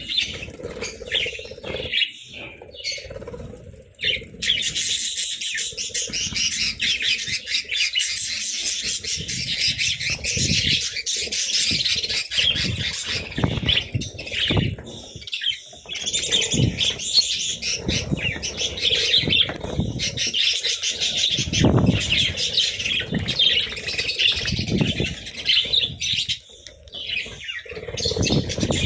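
Several budgerigars chirping and chattering continuously, with bursts of wing flapping.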